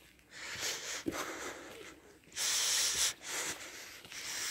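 A person breathing close to the microphone: several hissing breaths in and out, the loudest about two and a half seconds in.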